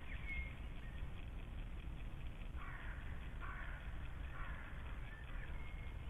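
Outdoor birdsong: three harsh calls about a second apart from a large bird, with a few thin whistled notes from a songbird, over a steady low rumble.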